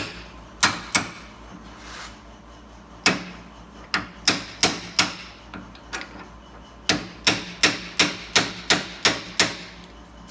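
Hammer tapping on a U-joint in a drive-shaft yoke held in a vise to drive the bearing cups out, sharp metal-on-metal strikes. A few scattered blows come first, then a quick run of about three strikes a second over the second half.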